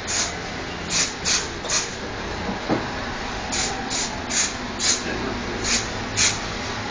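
About ten short hissing spray bursts in two quick runs, as a trigger sprayer is squeezed over and over, over a steady machine drone.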